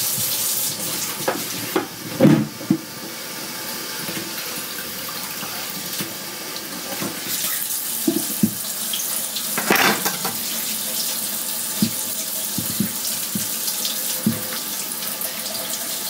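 Kitchen faucet running into a sink while a raw beef roast is rinsed under it, the flow changing now and then, with a few knocks and splashes from handling the meat in the sink.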